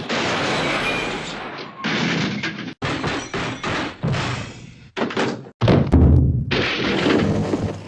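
Hanna-Barbera cartoon crash sound effects with added junk crashes: clattering, crashing noise spliced together in several pieces with abrupt cuts. The heaviest, deepest crash comes about six seconds in.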